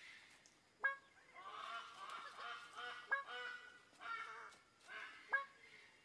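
Male greater birds-of-paradise calling at their display perch. Three loud, sharp call notes come about two seconds apart, over a busy run of rapid, overlapping shorter calls from several birds.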